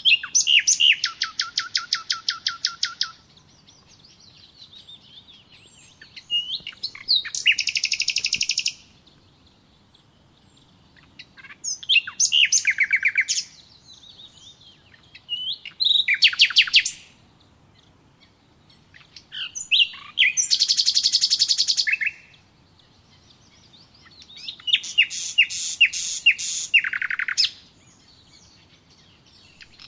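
Songbird singing loud, rapid trilled phrases, six in all, one every four seconds or so and each lasting one to three seconds, with a seventh just starting at the end. Fainter chirps from other birds fill the gaps between phrases.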